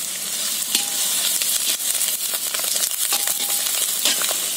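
Onions, green chillies, garlic and freshly added curry leaves sizzling in hot oil in a large iron wok, with a long steel ladle scraping and stirring them against the pan.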